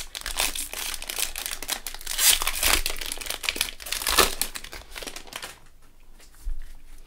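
Plastic wrapper of a Donruss Optic football card pack crinkling and tearing as gloved hands rip it open, a dense crackle that thins out about five and a half seconds in.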